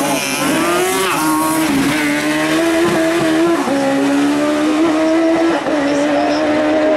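Citroën Saxo hill-climb race car's engine running hard at high revs. The pitch swings up and down in the first couple of seconds, then holds a steady high note with a few brief dips.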